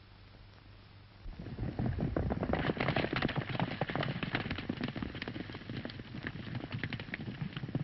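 Several horses galloping: a dense, irregular clatter of hoofbeats that starts suddenly about a second in and keeps going.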